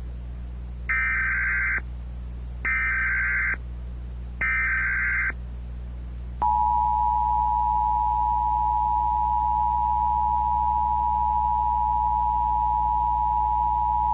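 Emergency Alert System broadcast: three short bursts of SAME digital header data, each under a second long and about a second apart, then the steady two-tone EAS attention signal starting about six seconds in and holding to the end, over a low steady hum.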